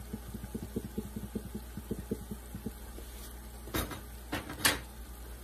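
A shaker of Accent seasoning shaken fast over a pot, about six shakes a second for roughly three seconds. This is followed by two sharp knocks about four seconds in, over a steady low hum.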